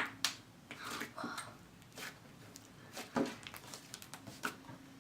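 Butter slime being squished and stretched by hand, giving scattered soft clicks and snaps a second or so apart, with faint murmuring.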